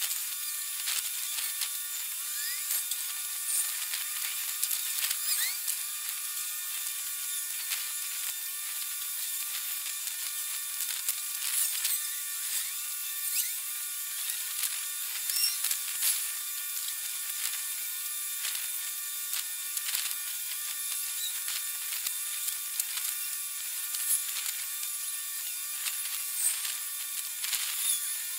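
A steady high-pitched buzz made of several thin tones, with a fainter tone that pulses a little under twice a second and many scattered small clicks.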